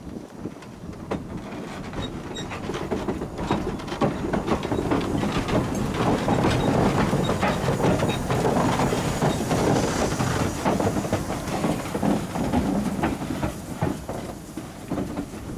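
Narrow-gauge steam train passing, growing louder and then fading away, with a steady rumble and many short clicks of wheels running over the rail joints.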